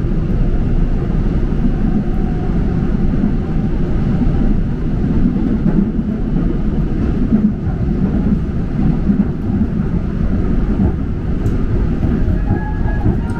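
Seoul Subway Line 3 train running, a steady low rumble with no let-up.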